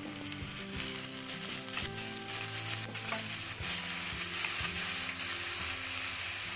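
Sliced small onions and tomato frying in hot sesame oil in a clay pot, sizzling, with a few knocks from the stirring spoon. The sizzle grows louder about halfway through.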